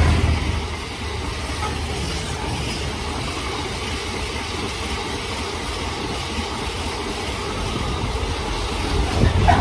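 Intermodal freight train of container flat wagons rolling past close by at speed: a steady rush and rumble of steel wheels on rail. The Class 66 diesel locomotive's noise fades in the first second, and the wagon noise grows louder, with clattering knocks, near the end.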